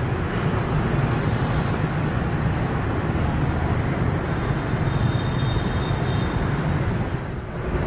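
Steady street traffic noise, a constant hum of passing vehicles.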